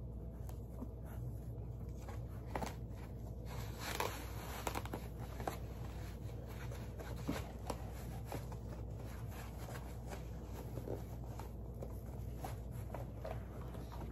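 Handling noise from fitting an animatronic prop's plastic arm into its cloth sleeve: rustling fabric with scattered light clicks and knocks, the loudest about four seconds in, over a low steady hum.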